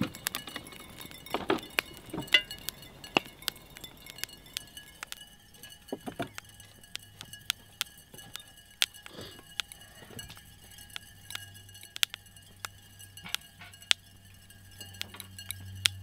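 Hot raku-glazed ceramic tea bowls pinging and ticking irregularly as they cool, small sharp glassy clinks of the glaze crazing. A low hum comes in about six seconds in and grows toward the end.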